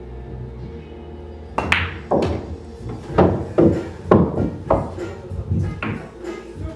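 A pool shot: the cue tip striking the cue ball and the balls clicking together, then a run of irregular knocks as balls hit and a ball drops into a pocket. It starts about a second and a half in, over steady background music.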